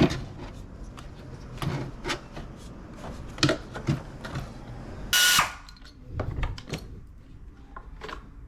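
Tools clicking and knocking on an engine while a valve cover is being removed, with one short, loud power-tool burst about five seconds in.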